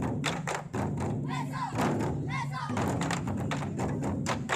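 Ensemble of large Chinese barrel drums (24 Festive Drums) struck hard with sticks in an irregular series of loud hits, with the drummers' short shouts breaking in twice between the beats.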